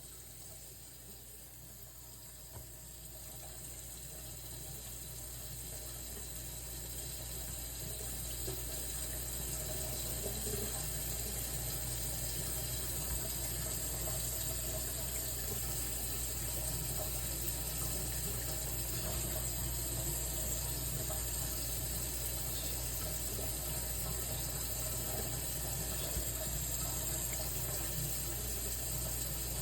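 Steady rushing noise like running water, growing slowly louder over the first ten seconds or so and then holding steady.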